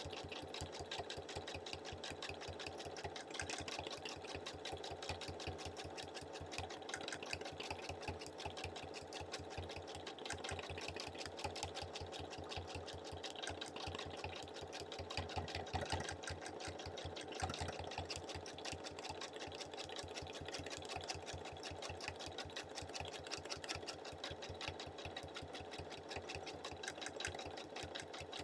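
Domestic sewing machine stitching steadily, free-motion quilting through layered fabric, its needle making a rapid, even run of strokes.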